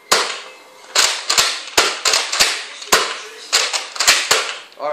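Nerf Elite Retaliator dart blaster being primed and fired in quick succession: about ten sharp plastic clacks, some in close pairs, each with a short echo off the room.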